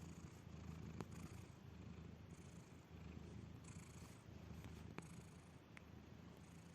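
A sleeping cat's faint, purr-like snoring: a steady low rumble, with a couple of soft clicks.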